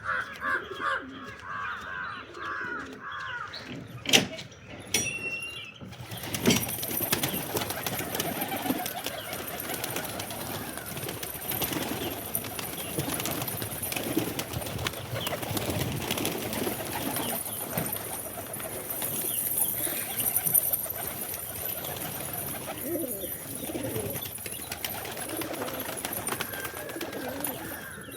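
Pigeons cooing: a short run of repeated higher notes at the start and a sharp knock about four seconds in. From about six seconds in, many overlapping coos are heard together over a steady high hiss.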